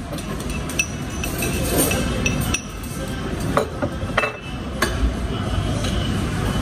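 Metal cutlery clinking and scraping against ceramic plates as people eat, in irregular sharp clinks over a steady low background hum.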